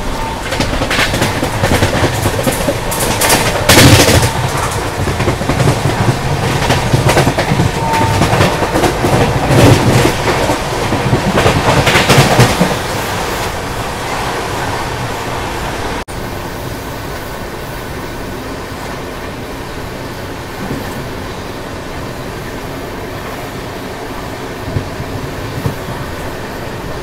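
Passenger train running on the rails, its wheels clacking over the rail joints with a heavy rumble. The clacking is loud for the first dozen seconds, then gives way to a steadier, quieter rumble after a brief break.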